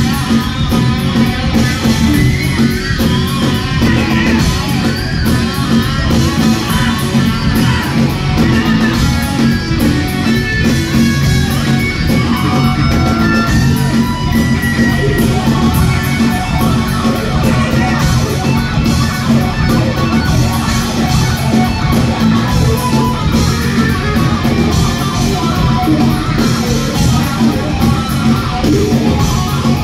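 Rock band playing live at full volume: electric guitars, bass guitar and a drum kit with steady, regular drum hits.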